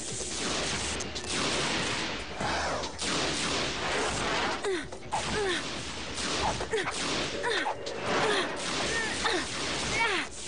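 Cartoon battle sound effects: a steady rush of noise full of short falling zaps from laser shots, with whooshes and a few sharp hits.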